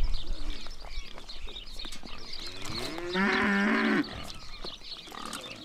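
A calf moos once, about halfway through: a single call of roughly a second and a half that rises at the start, then holds steady and stops abruptly. Small birds chirp throughout.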